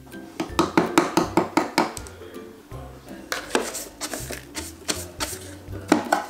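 Background music over a quick run of sharp scrapes and clicks of a flat metal blade prying at a dollhouse's wooden siding. Later come swishing strokes of a small hand brush sweeping wood shavings across a board into a plastic dustpan.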